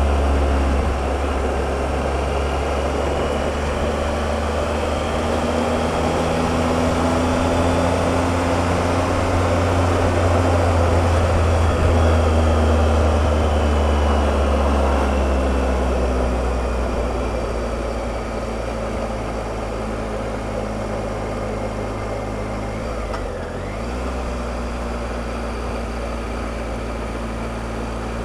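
Triumph Explorer motorcycle's three-cylinder engine running steadily on the move, with a rush of wind over it. The engine note eases off a little past the middle, then briefly dips and picks up again near the end.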